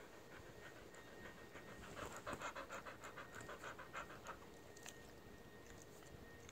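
Dog panting close to the microphone, a quick even rhythm of about four or five breaths a second, louder in the middle.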